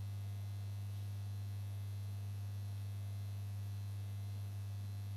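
Steady electrical mains hum, a low tone with a weaker overtone above it, over faint hiss.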